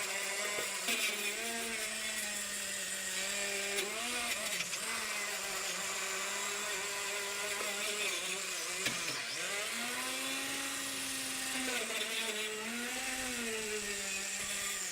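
Handheld power tool cleaning rust and paint off the steel inner fender liner of a 1965 Ford Mustang, running steadily with a hiss of abrasion. Its motor pitch sags and comes back up several times as it is pressed into the metal and eased off, most clearly about nine seconds in.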